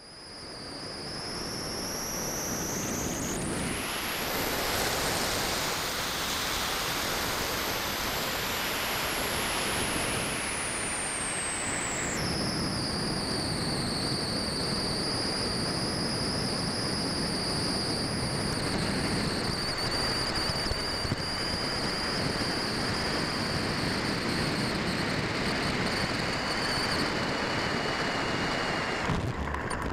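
Steady rush of air over an onboard camera on a scale model Kirby Gull glider in flight, with a high whistle. The whistle jumps up in pitch a few seconds in, slowly falls, then drops about twelve seconds in and holds steady.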